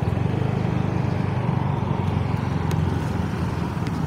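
Vehicle engine running steadily at an even pitch while driving along a road, with road and wind noise.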